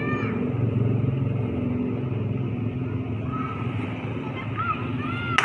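Diesel locomotive running as it approaches from far down the line, a steady low engine rumble. Short high-pitched chirping calls come over it at the start and again in the last couple of seconds, and a sharp click sounds at the very end.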